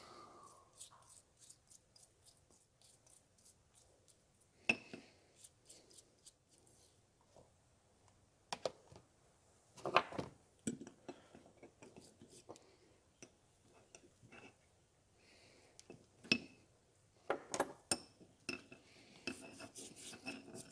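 Scattered light clicks and taps of a plastic brush and small brass lantern parts against a ceramic bowl while naval jelly is dabbed on, with a few louder knocks, about four in all.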